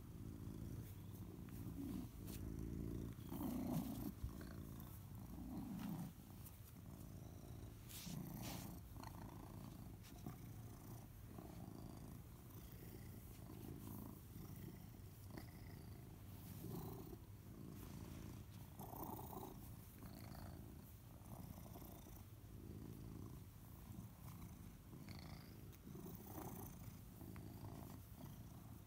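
Tuxedo cat purring steadily, close by, with a few faint rustles and clicks scattered through.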